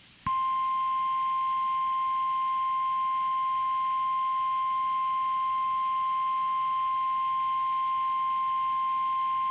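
NOAA Weather Radio 1050 Hz warning alarm tone: one steady, unbroken high tone that starts abruptly about a quarter second in and holds at a constant pitch and level, signalling that a warning message follows.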